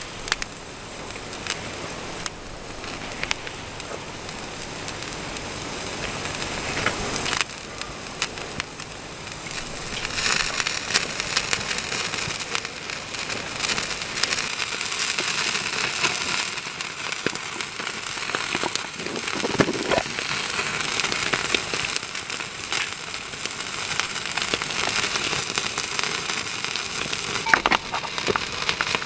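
Small wood fire crackling in a mini fire pit, a steady hiss dotted with sharp pops and snaps.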